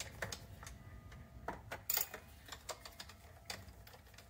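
Light, irregular clicks and ticks of a screwdriver and plastic parts being handled while the Phillips screws are taken out of a Roomba's plastic bottom plate, with the loudest click about two seconds in.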